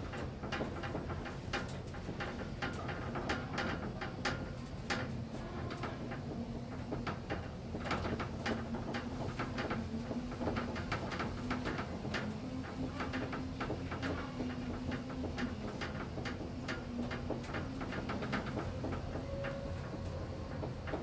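1975 KONE inclined traction elevator running along its incline: a steady hum whose pitch wavers slightly, with frequent irregular clicks and rattles.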